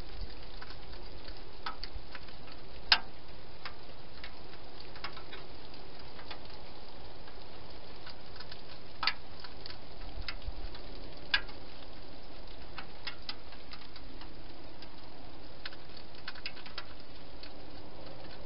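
European hedgehog eating from a bowl in a plastic feeding box: irregular small chewing clicks, three of them louder, over a steady hiss.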